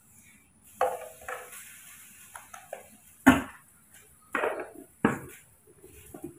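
A spoon stirring and knocking against a plastic cup: about five sharp clinks and clatters, the loudest a little past the middle.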